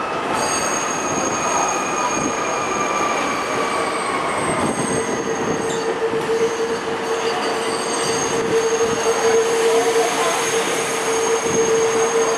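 Steel wheels of a slow-moving four-car R32 subway train squealing on curved yard track, several high-pitched squeals coming and going over a steady rumble of the train. A whine falls slowly in pitch in the first few seconds, and a lower, louder squeal sets in about four seconds in and holds.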